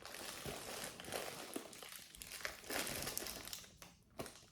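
Packaging crinkling and rustling in irregular bursts, with a few light clicks, as pieces of jewelry are rummaged through and picked out; it dies away near the end.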